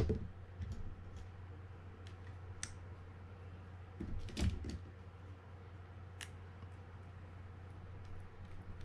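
Scattered light metal clicks and taps as a greased part is set into a Penn Clash 8000 spinning reel and a small screw is turned in with a mini screwdriver, over a faint steady low hum.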